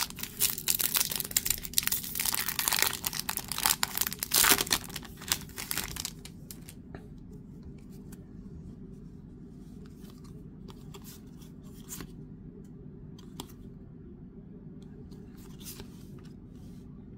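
Foil trading-card pack wrapper being torn open and crinkled, loud and crackling for about the first six seconds. After that come faint scattered clicks of cards being flicked through by hand.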